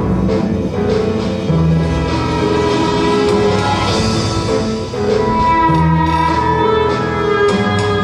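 Instrumental music: a run of held notes and chords over a low bass, changing every second or so.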